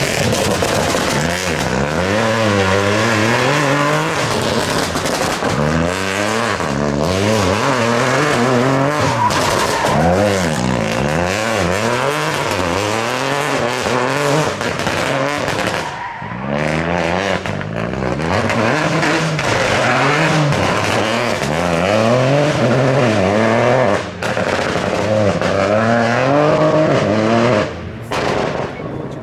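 Peugeot 208 Rally4's turbocharged 1.2-litre three-cylinder engine driven hard, its revs climbing and falling back again and again as it is worked through tight turns, with tyres squealing in places. The engine briefly goes quieter a few times as the driver lifts off.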